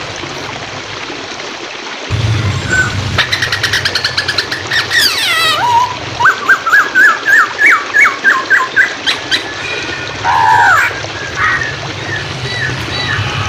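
Poksay hongkong, a laughingthrush, singing loud varied phrases over a steady rush of flowing water. There is a fast rattling run with down-sliding whistles, then a string of about ten sharp rising notes, and a few shorter calls near the end.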